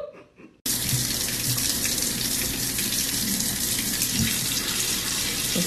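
Kitchen faucet running a steady stream of water into a stainless steel sink, starting about half a second in.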